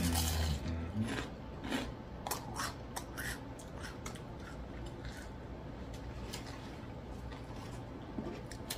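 Close-miked chewing of crunchy fried food, with irregular crisp crunches throughout and a short hummed "mm" at the start.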